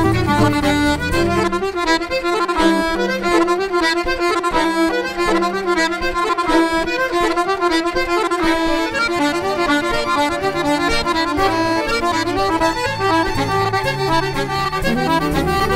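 Live Irish traditional music: a squeezebox (button accordion) leads a fast tune with fiddle. The low accompaniment drops away about a second and a half in and comes back in near the end.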